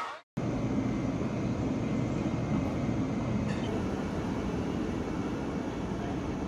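Steady running noise of a KTX-Eum train: an even rumble and hiss that holds level throughout.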